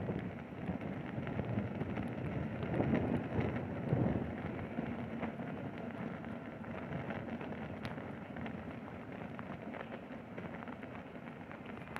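Electric unicycle's tyre rolling over a snow-covered sidewalk: a steady rushing noise with scattered small clicks, a little louder a few seconds in.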